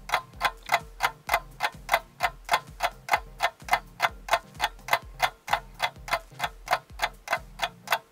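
Clock ticking steadily, a sharp tick about three times a second.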